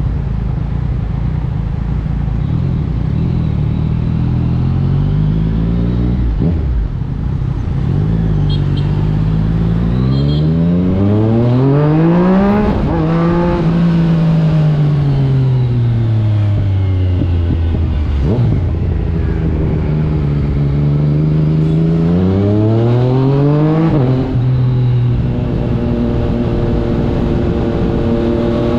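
2021 Yamaha MT-09's 890 cc inline-three engine through an Akrapovic exhaust, ridden hard. The engine note climbs under acceleration with a brief break at a gear change, falls away slowly as the bike slows in the middle, then climbs again and holds a steady pitch near the end.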